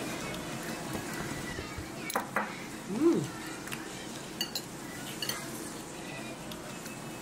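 Metal spoon and dishes clinking at a meal table: a handful of light, scattered taps and clinks, one of them ringing briefly about four and a half seconds in.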